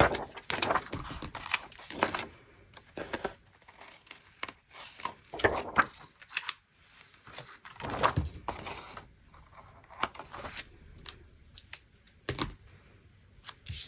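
Irregular clicks and rustles of paper handling: a planner page is turned over and laid down, and scissors snip a paper floral sticker.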